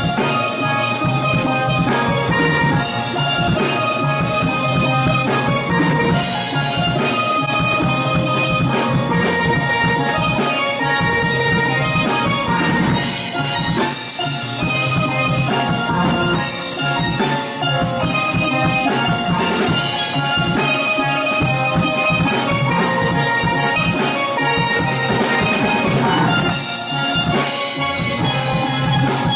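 Steel pan ensemble playing a pop song, several pans sounding melody and chords over a drum kit keeping the beat.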